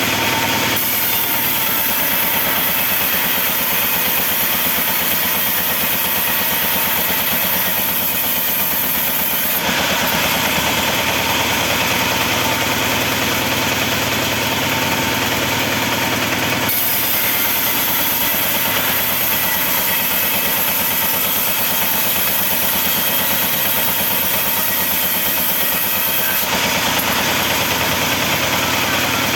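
Sawmill saw machinery running steadily, a loud, dense mechanical noise. Its sound changes abruptly three times.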